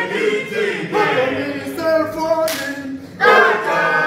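Male choir singing a cappella in harmony, in sustained phrases, with a loud new phrase coming in near the end.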